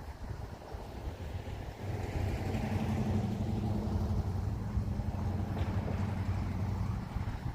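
A steady low engine hum from a motor vehicle, coming in about two seconds in and holding at an even pitch, over low rumbling outdoor noise.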